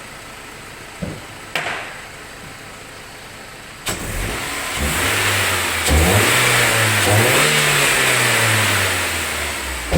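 BMW E46 engine breathing through an open sport air filter: it comes in suddenly about four seconds in and is revved, its pitch rising, dipping and rising again, then easing off near the end, with a loud intake hiss over the engine note.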